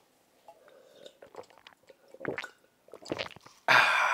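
A person sipping and swallowing hot water from a cup, with soft wet slurps and a couple of audible gulps, then a loud breathy "ahh" of relief near the end.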